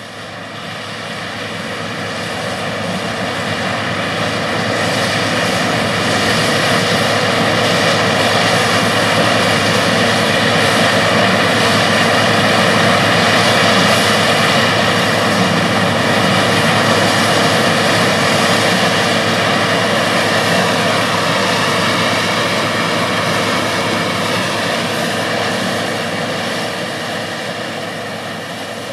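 International 856 tractor's six-cylinder engine pulling under load while its mounted 234 corn picker-sheller picks and shells corn: a steady engine drone blended with the noise of the picking and shelling machinery. It grows louder over the first several seconds as the machine approaches and eases off in the last few.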